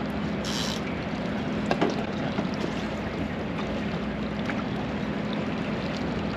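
Steady low hum of a fishing boat's engine over a noisy wash of water, with a brief hiss about half a second in and a few light clicks.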